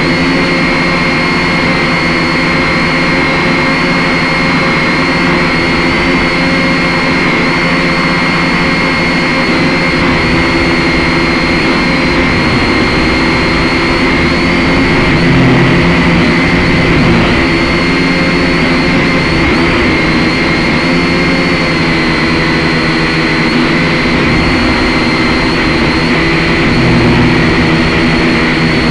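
Syma X5C quadcopter's small electric motors and propellers whining steadily in flight, heard close up through the drone's own onboard camera microphone. The high whine wavers slightly in pitch and swells a little a couple of times.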